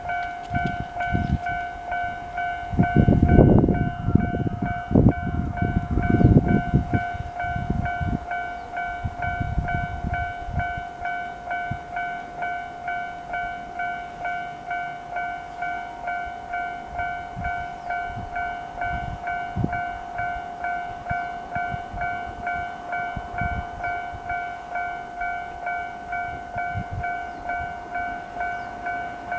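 A Japanese level-crossing warning bell rings with its standard tone: an even, rapid ding repeated over and over without a break. About three to seven seconds in, a loud low rumble joins it.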